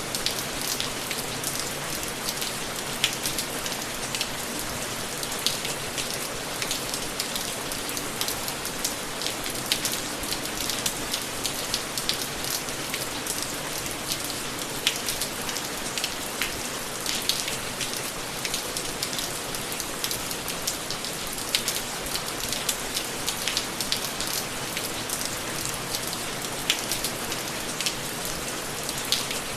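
Steady rain: an even hiss with many sharp ticks of single drops hitting a surface.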